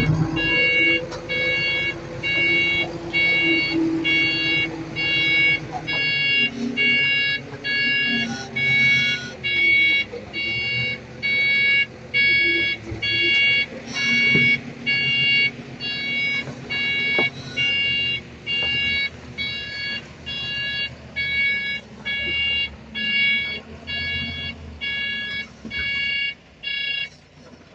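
Backup alarm of a heavy earthmoving machine beeping about once a second while it reverses, over its diesel engine running and changing speed. The beeping stops near the end.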